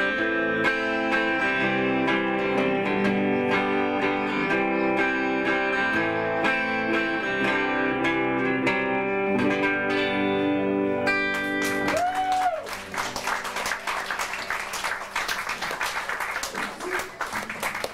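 Small live band with guitars and no drums playing the last bars of a song, ending about twelve seconds in. The audience then claps.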